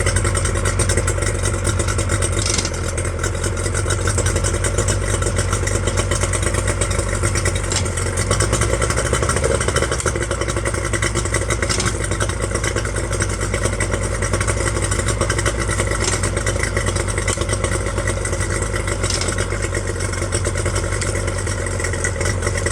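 Yamaha 30 hp outboard motor idling steadily after a lower-unit service, its note shifting slightly about eight seconds in.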